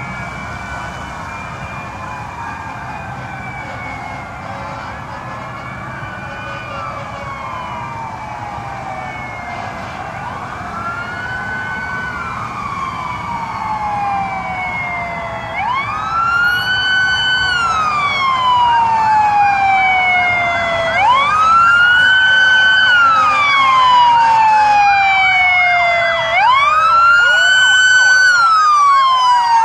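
Sirens of an approaching police escort wailing and growing louder. At first several sirens overlap; from about halfway one close siren dominates, each wail rising quickly and falling slowly, about every five seconds.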